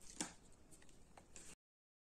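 Near silence: quiet room tone with a few faint clicks, the first and loudest just after the start, then the sound cuts off to dead silence about one and a half seconds in.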